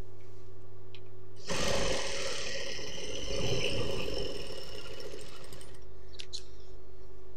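Industrial sewing machine stitching a folded trouser hem in one run of about four seconds, starting about a second and a half in, over the steady hum of its motor. A few light clicks follow near the end.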